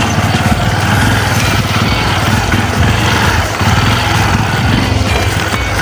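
Small motorcycle engine running steadily while ridden, a low continuous chugging rumble.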